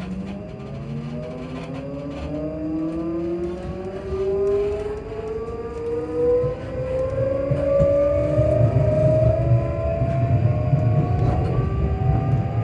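Class 334 electric multiple unit's traction motors humming as the train accelerates: several tones rise steadily in pitch. A low rumble under them grows louder in the second half.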